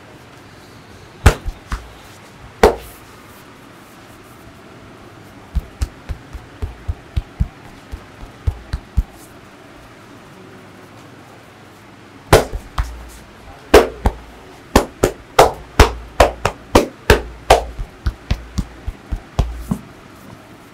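Massage percussion: hands striking the head and body in sharp slaps and pats. Two hard strikes, then a run of lighter strikes at about three a second, then a longer run of louder slaps at about the same pace.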